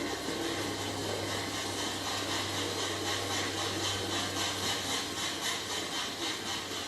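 Train running: a steady rushing noise with a low hum, and a fast even rhythmic beat that grows clearer from about halfway.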